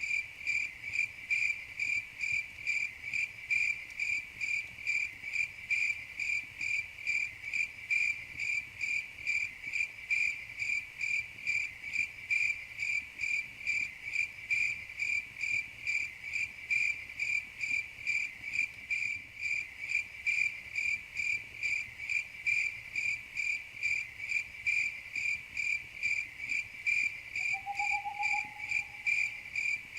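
Crickets chirping steadily in an even, high-pitched rhythm of about two to three chirps a second. Near the end a single short, lower call sounds once, rising slightly.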